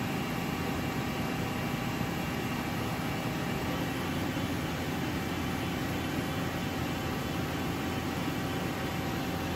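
2006 Okuma V80R CNC vertical lathe with its table spindle running at 400 RPM: a steady machine whir with faint steady tones above it.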